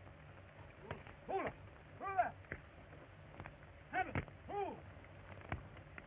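Several short hooting calls, each rising then falling in pitch, coming in pairs, over the faint clicks and hum of an old film soundtrack.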